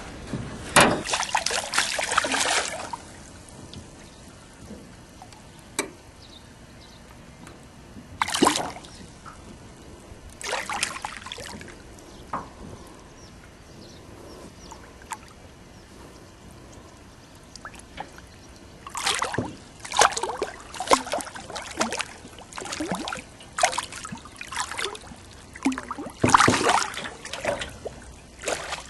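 Water splashing in irregular bursts as a hooked wels catfish thrashes at the surface beside a boat, with a quiet spell in the middle and a long run of splashes toward the end.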